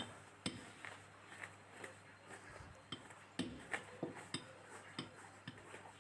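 Faint, irregular metallic clicks and light taps: tools and metal parts being handled while the bearings are fitted into a washing machine's outer tub.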